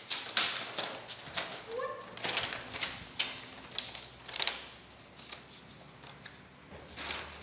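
Paper rustling and crackling as the pages of a printed instruction booklet are flipped and turned, in a string of quick, uneven swishes.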